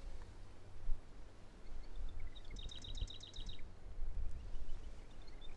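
A bird calling in a quick, even series of about ten short high notes lasting roughly a second, midway through, over a steady low rumble.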